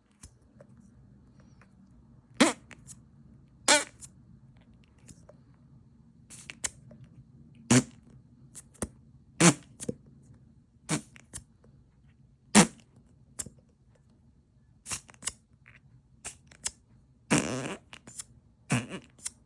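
A string of short fart sound effects, one after another at irregular gaps, each lasting only a moment. Near the end comes one longer fart of about half a second.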